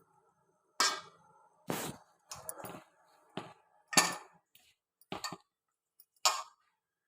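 Metal kitchen utensils clinking and knocking against each other, about eight separate irregular knocks.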